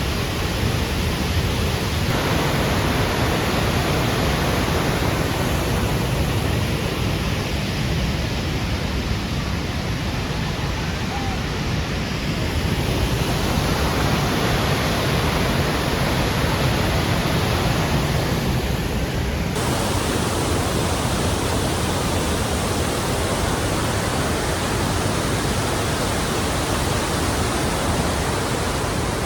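Steady rushing roar of the Lechfall waterfall, the Lech river pouring over its falls. The upper hiss of the water shifts abruptly about twenty seconds in.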